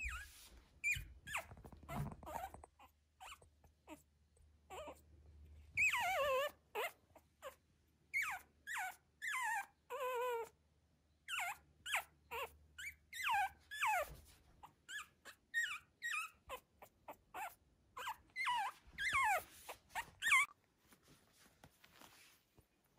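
Newborn miniature Schnauzer puppy crying: a long string of short, high whines, each sliding down in pitch, coming several a second in clusters and stopping near the end.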